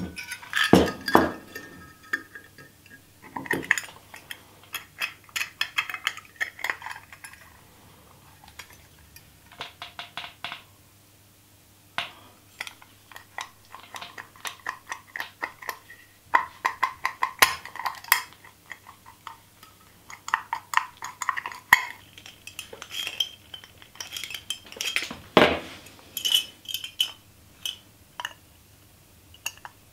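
Small steel parts clinking, rattling and scraping in the hand as a stainless-steel brick-tie rod is worked through a steel stovepipe collar and turned against its butterfly damper disc. Irregular bursts of clinks with short pauses, and one louder metal knock late on.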